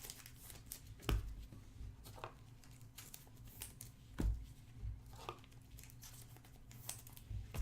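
Trading cards and their plastic wrapping and holders being handled: faint scattered clicks and crinkles, about one every second, over a low steady hum.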